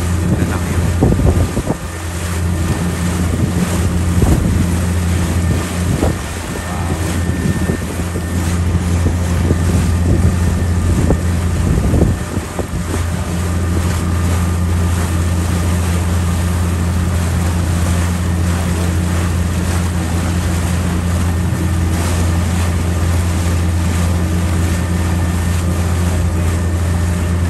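A tour boat's engine running with a steady low hum. Wind buffets the microphone in uneven gusts over roughly the first twelve seconds, then the sound settles.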